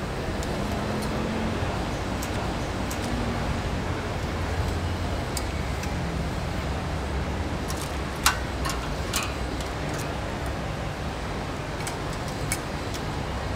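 Steady street-market background noise with a low traffic rumble. A few sharp metal clicks of steel tongs against a steel tray stand out, the loudest a little after eight seconds in.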